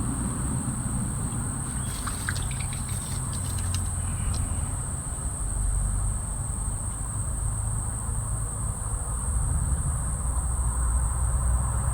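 Steady high-pitched insect drone, crickets or similar, over a low steady rumble. A few light clicks and rustles come about two to four seconds in.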